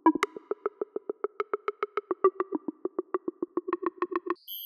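Synthesized drum hits from the 'Analog Block' drum preset of ROLI's Equator Player, played on a Seaboard Block as a fast, even roll of about eight hits a second. There is a loud accent just after the start, and the roll stops about four seconds in.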